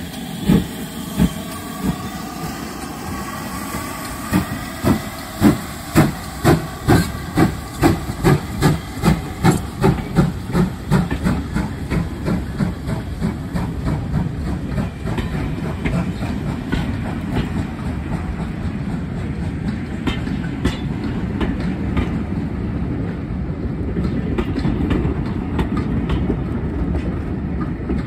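GWR 2884-class 2-8-0 steam locomotive 3802 pulling away from a standstill, its exhaust chuffs coming faster and faster through the first ten seconds or so. The beats then give way to the steady rumble and clickety-clack of its passenger coaches rolling past over the rail joints.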